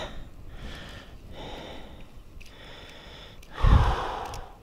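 A person breathing close to the microphone, a few soft breaths about a second apart, with one louder, heavier breath near the end.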